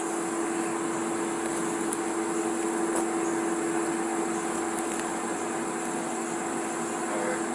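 A steady, unchanging hum with one constant low tone and a constant high hiss over it, the kind of sound a running motor or fan makes, with a few faint ticks.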